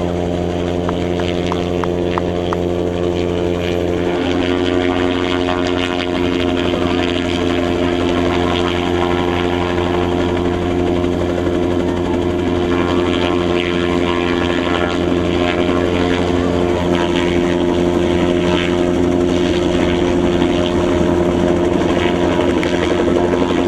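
Helicopter running: a steady drone of rotor and engine tones that shift slightly about four seconds in and grow a little louder toward the end.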